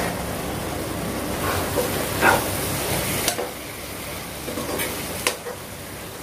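A spatula stirring thick onion-tomato masala in a nonstick pan, scraping against the pan several times over a steady sizzle.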